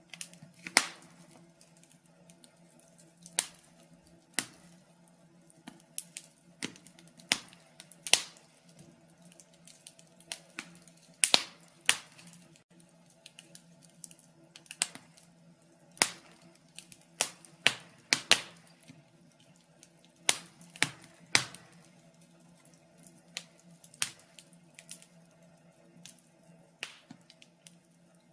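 Wood fire crackling in a fireplace: irregular sharp pops and snaps, some coming in quick clusters, over a faint steady low hum.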